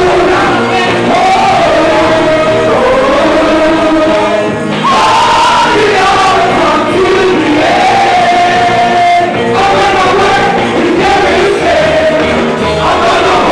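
Gospel choir singing live, with men's lead voices amplified through handheld microphones over the choir.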